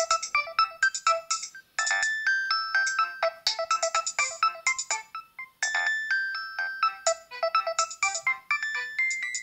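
Nokia 7250i ringtone playing from the phone's loudspeaker: a fast electronic melody of short, bright notes, with a brief pause about two seconds in and another past five seconds.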